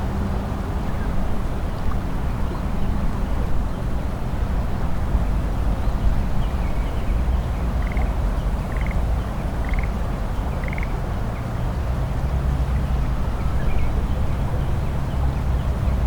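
Steady low rumble of distant expressway traffic over a rice paddy. About halfway through, a small animal in the paddy gives a run of short high calls, four clear ones about a second apart.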